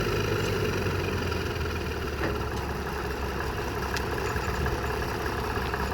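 Frick sawmill and its power unit running steadily at idle, with no log being cut. A couple of faint clicks about two and four seconds in.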